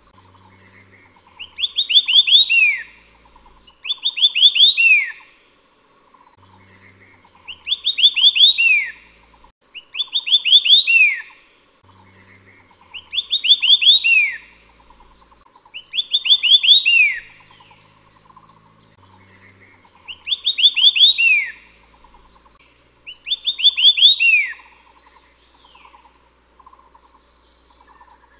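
White-eared sibia singing: a loud short phrase of quick rising notes ending in a falling slur, repeated about every three seconds, eight or nine times, with a pause near the end.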